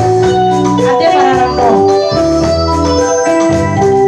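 Electronic keyboard playing an organ-sounding melody of held notes that step from pitch to pitch over a steady bass line.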